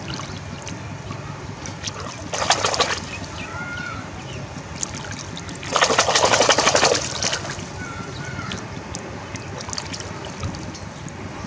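Live catfish thrashing in a wire basket in shallow water, splashing in two bursts: a short one about two seconds in and a louder, longer one about six seconds in.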